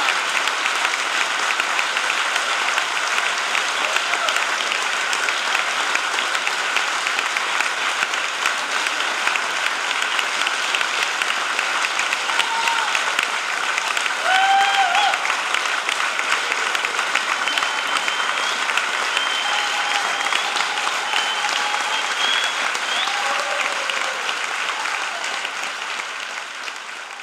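A large audience applauding steadily, with a few cheers rising above the clapping from about halfway through. The applause fades out near the end.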